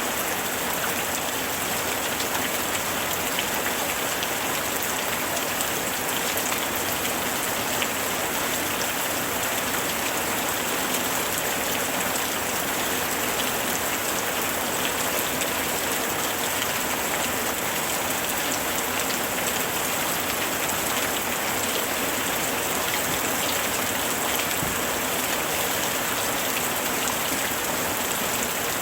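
Steady summer rain: a dense, even hiss of rainfall dotted with many small drop taps, unchanging throughout.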